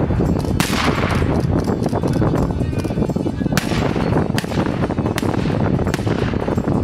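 Two loud shotgun shots about three seconds apart, each trailing off in an echo, followed by a couple of fainter shots, over a steady rushing noise.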